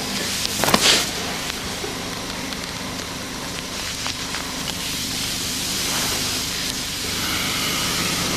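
Steady hissing background noise with a faint low hum. A short, sharp rustle-like sound comes just under a second in.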